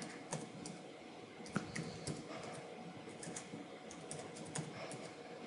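Faint typing on a computer keyboard: a run of light, irregular keystroke clicks as a sentence is typed out.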